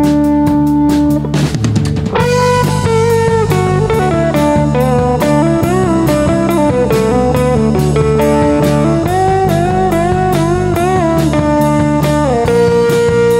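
A band plays an instrumental break led by a Strat-style electric guitar solo, its single melodic line full of string bends, over bass and a steady drum beat.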